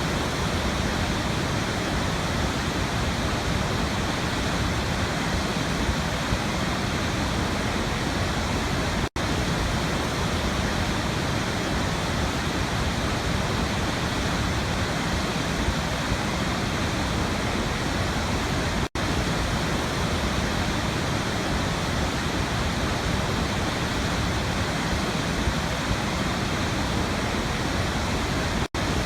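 Waterfall: a steady, even rush of falling water, broken by a very brief dropout about every ten seconds.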